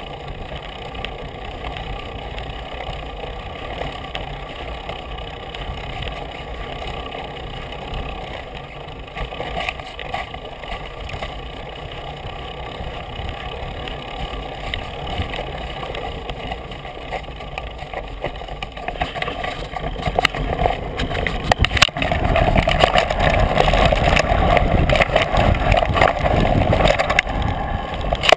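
Mountain bike riding over a dirt forest trail: steady tyre rumble and wind noise on the bike-mounted camera, with scattered rattles and knocks over bumps. It gets clearly louder about 22 seconds in.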